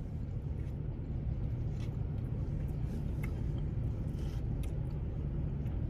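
Steady low hum of a parked car's cabin with the engine running, with a few faint taps of forks against foam cups.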